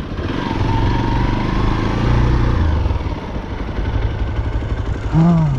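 Hero XPulse 200's single-cylinder engine running steadily at low revs, easing a little in loudness about halfway.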